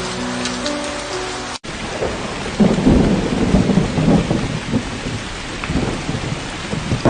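Soft music with held notes over rain, cut off suddenly about a second and a half in; then steady rainfall with thunder rumbling low and irregularly.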